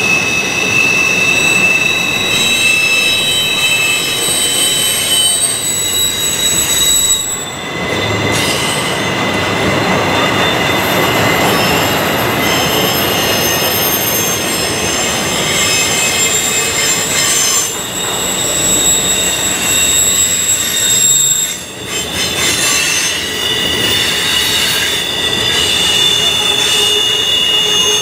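Freight train's steel wheels squealing against the rails as loaded intermodal flatcars roll through a sharp curve, over the steady rumble and clatter of the passing cars. Several high, steady squeals at different pitches come and go: flange squeal from wheels grinding around the curve.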